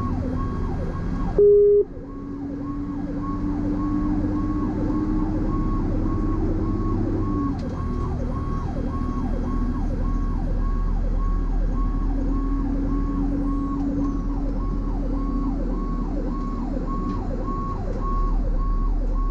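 Fire truck siren on a fast electronic yelp, about two falling sweeps a second, over the engine's steady drone as heard inside the cab. A short, loud horn blast comes about a second and a half in.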